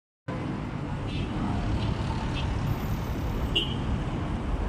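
Steady low rumble of street traffic, with a few faint short high chirps over it.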